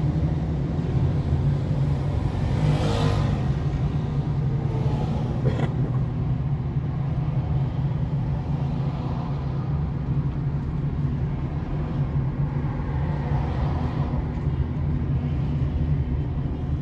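Car driving along a city road, heard from inside the cabin: a steady low engine and road drone. About three seconds in, a brief louder swish.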